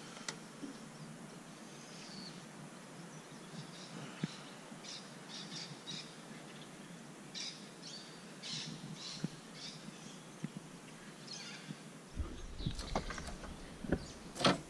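Wild birds chirping and calling in short, high notes scattered throughout. Low rumbling noise comes in about 12 seconds in, and a few sharp clicks follow near the end.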